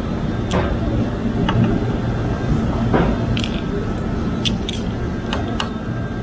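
Scattered light metallic clicks and taps from hand work on a motorcycle brake caliper as it is reassembled after a pad change, over a steady low rumble.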